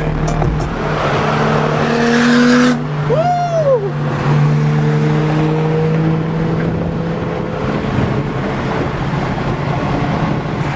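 Car engines running, with a surge of noise that cuts off sharply just before three seconds in, then a short squeal that rises and falls in pitch.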